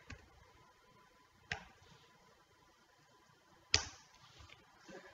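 A few separate presses on a laptop keyboard, sharp single clicks spaced a second or two apart, the loudest about three and three-quarter seconds in, against quiet room tone.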